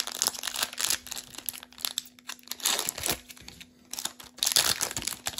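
Foil wrapper of a Pokémon card booster pack being torn open by hand, crinkling and tearing in a string of short bursts.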